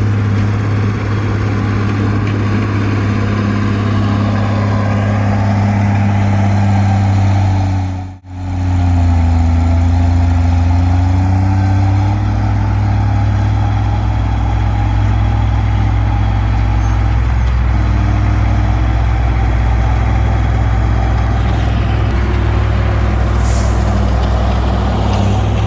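Komatsu D20P bulldozer's diesel engine running steadily. The sound cuts out briefly about eight seconds in, and the engine note shifts slightly after it.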